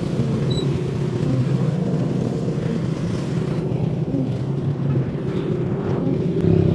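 Motorcycle engine idling with a steady low hum. The hum grows louder near the end.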